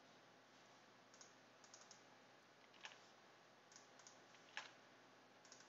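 Faint computer keyboard typing: scattered single keystrokes and short runs of taps, irregularly spaced, over near-silent room tone.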